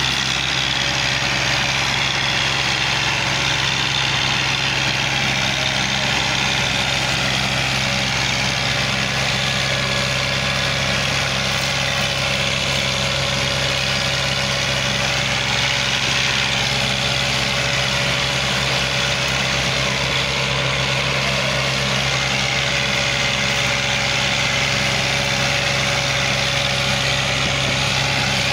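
Massey Ferguson tractors' diesel engines running hard under heavy load, a steady, even drone with no change in pitch.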